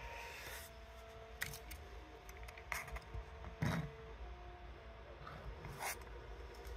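Faint whine of the LowRider 3 CNC's NEMA 17 stepper motors driving the axes, coming and going over a low hum, with the machine carrying 10 pounds of added weight on each side. Several sharp clicks and knocks break in, the loudest about three and a half seconds in.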